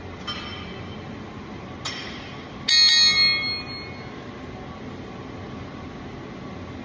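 A loaded barbell being lifted in a deadlift. The metal plates and bar give two light clinks, then a loud ringing clang about two and a half seconds in that rings on for about a second.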